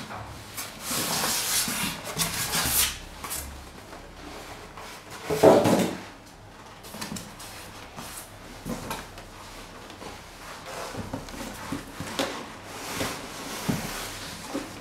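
Polystyrene foam packing and a boxed computer monitor being pulled out of a cardboard carton: scraping and rubbing of foam against cardboard, a loud dull thump about five and a half seconds in, then lighter knocks and scrapes as the monitor is lifted out.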